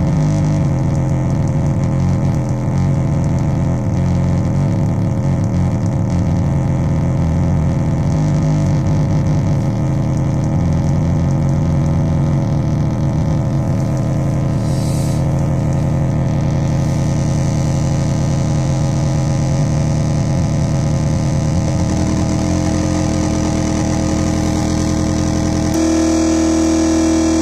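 Metsään Dirty Drone [anarchy] synth, its three interacting triangle-wave oscillators putting out a loud, continuous drone of several steady tones with a heavy low end. A hissier upper layer comes in about halfway, and the tone changes suddenly near the end as the settings are changed.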